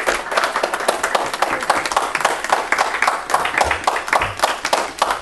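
Congregation applauding: many hands clapping in a steady dense patter.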